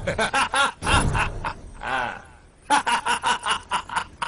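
A man laughing in two runs of quick, rhythmic bursts, with a longer drawn-out vocal sound between them.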